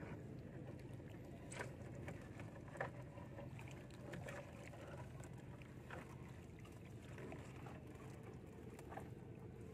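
Fishing net being hauled by hand into a small wooden outrigger boat: faint handling noise with scattered small clicks and knocks, the sharpest about a second and a half and about three seconds in, over a steady low hum.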